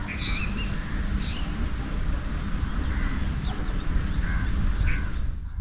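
A few short bird calls, one near the start, one about a second in and one near the end, over a steady low rumble.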